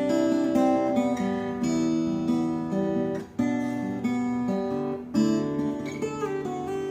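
Epiphone AJ-220SCE acoustic guitar, with a solid Sitka spruce top and mahogany body, played in ringing chords with a short break a little after three seconds in.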